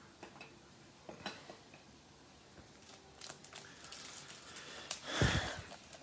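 Hands handling and opening a foil NBA Hoops trading-card pack: scattered soft clicks and crinkles, then a louder crinkling rustle about five seconds in.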